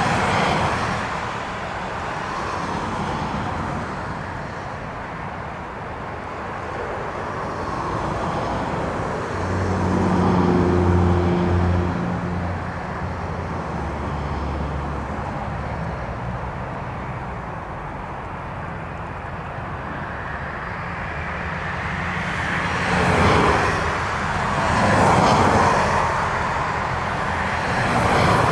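Jet engines of an Airbus A319 airliner running as it rolls along the runway after landing: a steady roar that eases and swells, with a low hum about ten seconds in and two louder surges near the end.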